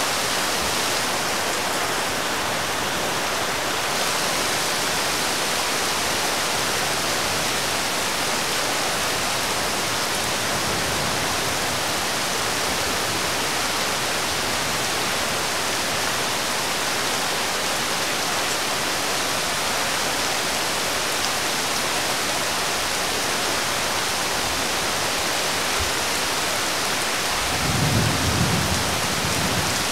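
Steady rain falling, an even hiss, with a brief low rumble near the end.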